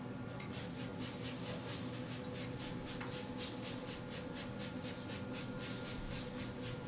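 Trigger spray bottle spritzing water onto a pork shoulder on a smoker grate: quick repeated hissing squirts, about three a second, with a short pause near the end, over a steady low hum.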